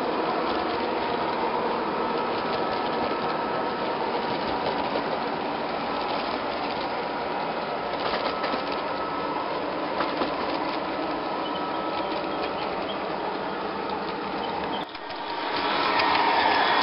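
O gauge model trains running on their track: a steady whirring rattle of small electric motors and wheels. About fifteen seconds in the sound drops out for a moment, then grows louder as a model diesel locomotive passes close by.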